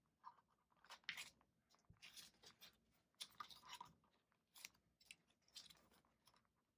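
Faint crinkling and rustling of clear plastic binder pouches holding paper bills as they are handled and turned in a ring binder, in short irregular rustles.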